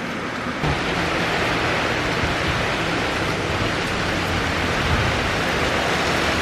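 Heavy rain pouring down onto a street and pavement: a steady, even rush that gets louder a little under a second in.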